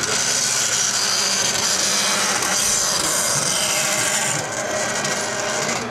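Bandsaw blade cutting through an aluminum bracket: a steady high-pitched hiss over the saw's steady motor hum, easing off about four and a half seconds in.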